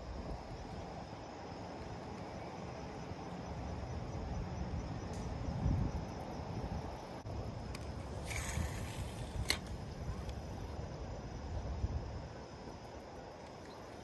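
Strong wind buffeting the microphone, a steady low rumble. About eight seconds in there is a brief hiss lasting under a second, then a single sharp click.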